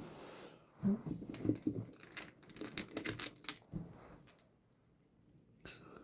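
Loose steel sockets clinking and rattling against each other as they are handled: a run of light metallic clicks for about three seconds, and a single click near the end.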